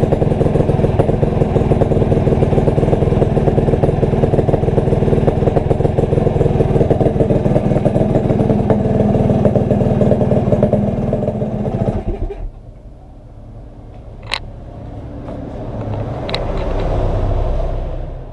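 Yamaha RXZ single-cylinder two-stroke engine in an RX King frame running steadily, then stopping suddenly about twelve seconds in. After it, a quieter low rumble that swells and fades, with two sharp clicks.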